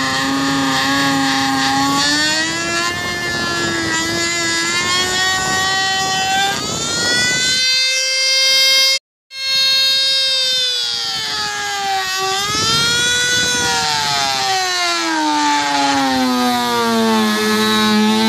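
Dremel rotary tool with an orange abrasive bit grinding through a plastic kayak deck, opening and smoothing a ring of drilled holes into a hatch cut-out. The motor whine rises and sags in pitch as the bit bogs under load and frees up. It cuts out for a moment about nine seconds in.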